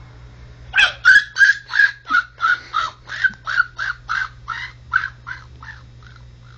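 A baby babbling a long run of repeated 'ta' syllables, about three or four a second, starting about a second in and fading away near the end.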